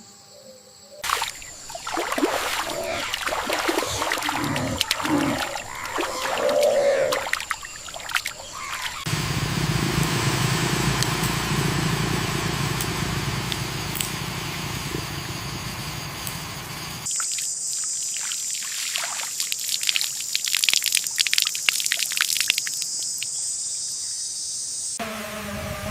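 Water splashing, pouring and trickling, heard in several abruptly cut sections: irregular splashing first, then a steadier rush of water, then splashing under a steady high-pitched hiss.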